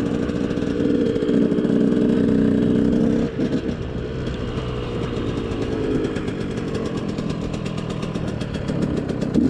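KTM SX 125 single-cylinder two-stroke engine running while being ridden, loud at first, then dropping off sharply a little over three seconds in as the throttle eases, and carrying on at a lower, steady pitch.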